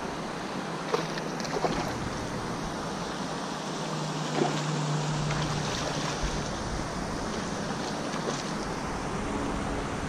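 Steady rushing noise of wind and creek water, with a few small splashes and clicks as a hooked bass thrashes at the surface.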